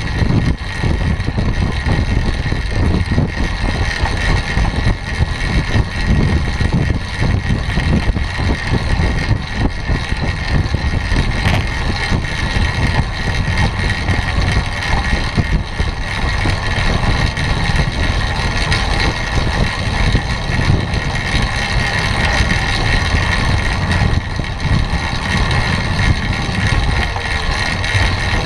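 Wind buffeting a bike-mounted camera's microphone as a track bike rides the wooden boards of a velodrome at about 20–25 mph, together with a steady hum from the tyres rolling on the track.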